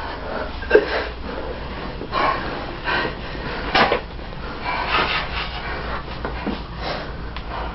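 Two people wrestling at close quarters: heavy, strained breathing and the scuffle of bodies and clothing, with irregular short bursts of effort.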